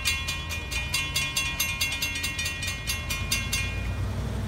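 Railroad crossing bell ringing fast and evenly, about five or six strokes a second, stopping about three and a half seconds in as the gates rise after the train has passed. A steady low rumble runs underneath and swells slightly near the end.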